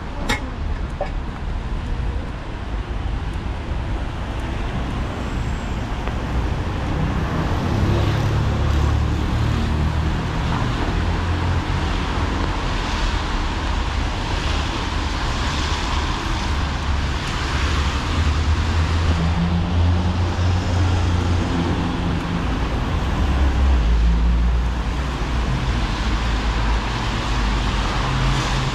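Street traffic on wet roads: cars passing with engine rumble and tyre hiss on wet asphalt, swelling and fading several times over a steady background wash.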